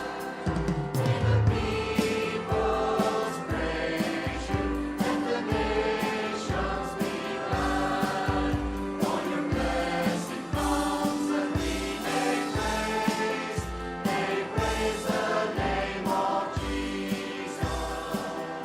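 A church worship group singing a hymn with a praise band, over a steady drum beat.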